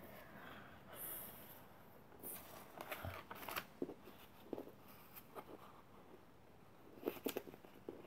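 A sheet of origami paper being folded and creased by hand on a wooden table: faint scattered rustles and crinkles, with a few sharper creasing sounds near the end.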